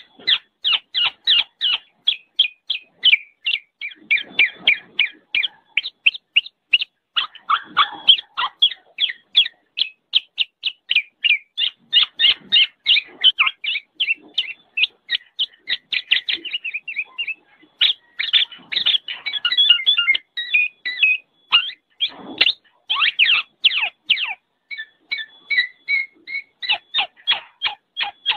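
Black-naped oriole (kepodang) calling noisily: a fast, unbroken-seeming run of short, sharp chirps at about three or four a second, with a few brief pauses.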